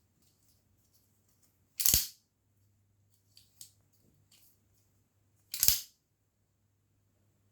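Ratchet-lock navaja folding knife being worked: two loud, sharp clacks of the blade and its Spanish-style carraca ratchet, about two seconds in and again near the end, with a few lighter clicks between them.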